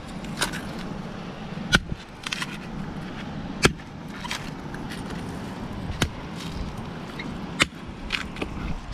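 Large knife chopping into a mature brown coconut resting on a palm log: four sharp strikes about two seconds apart, with lighter taps and scrapes between them as the husk and shell are cut open at the top.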